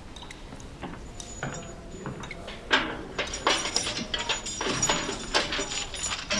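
Metallic clicks, clinks and rattles. They are sparse at first, then about three seconds in a sharp loud click starts a dense, busier run of clattering with a ringing metallic edge.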